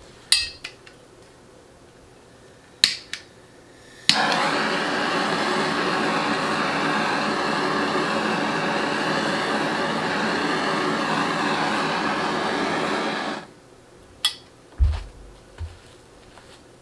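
Handheld butane torch flame burning with a loud, steady hiss for about nine seconds, heating vinyl wrap on a rifle magazine. It starts suddenly after a few sharp clicks and cuts off abruptly, followed by more clicks and a thump.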